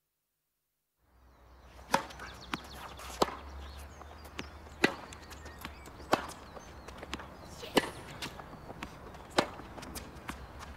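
Tennis rally: racket strings striking a tennis ball, a sharp pock every second and a half or so, with fainter knocks between. It starts about a second in, out of silence.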